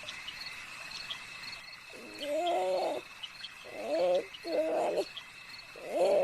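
Night-time ambience: a steady high cricket trill with faint regular chirps, joined by four short, low, pitched animal calls starting about two seconds in.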